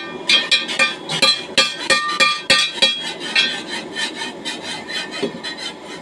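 A hand tool working metal in quick strokes, about three to four a second, each stroke giving a short metallic ring. The strokes grow weaker in the second half.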